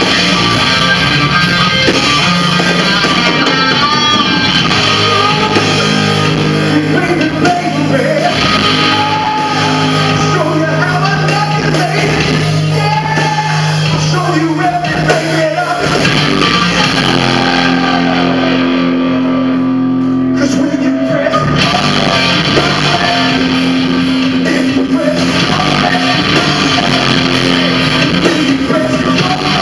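A live rock band playing: electric guitar and bass, with a singer.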